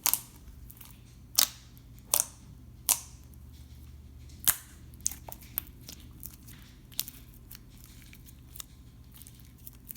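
Clear-glue slime being poked and squeezed by hand, giving off about eight sharp, irregularly spaced pops as trapped air bursts out. Most of them fall in the first five seconds.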